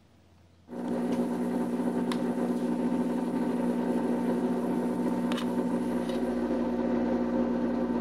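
A steady machine hum at a fixed pitch, starting just under a second in after a moment of near silence, with a couple of faint clicks.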